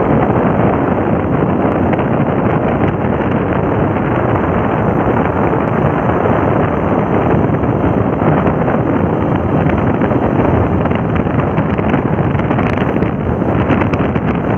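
Steady, loud wind rush buffeting the microphone of a motorcycle riding at about 40 to 55 km/h, with the bike's running noise blended in underneath.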